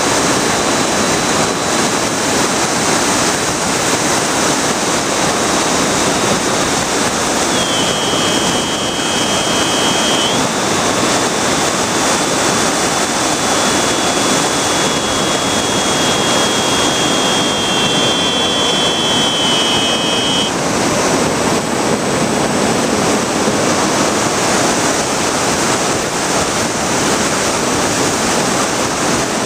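Steady loud wind rush and propeller noise heard from the onboard camera of a Bixler foam RC plane in flight. Over it runs a faint high whine from the electric pusher motor; it drops in pitch about a quarter of the way in, rises again a few seconds later, and fades out about two-thirds through.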